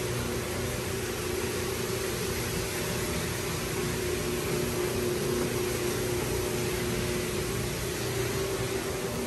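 Rotary floor buffer running steadily, its maroon screening pad spinning against a hardwood floor's finish, giving an even motor hum with a steady low whine over a broad rushing noise.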